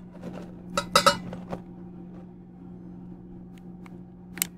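A glass bowl clinks against a stainless steel mixing bowl as powdered sugar is tipped in: several sharp clinks about a second in and a single one near the end, over a steady low hum.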